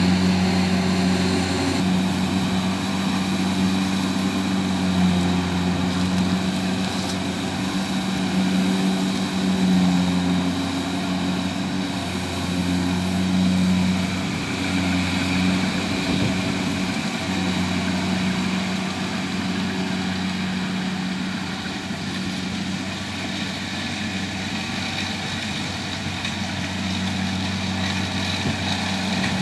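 Kubota DC70 Plus combine harvester's diesel engine running steadily under load as it harvests rice.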